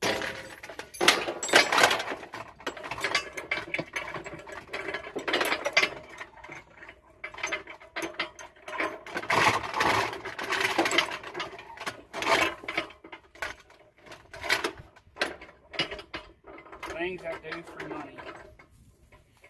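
Irregular metallic clanking and rattling from a homemade scrap-metal crane with a washing machine hanging loosely from it.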